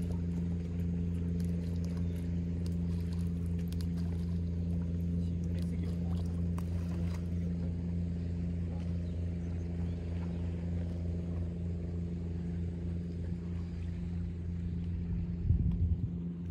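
A boat's engine idling with a steady low hum. Faint scattered ticks come over it through the first half, and there is a brief knock near the end.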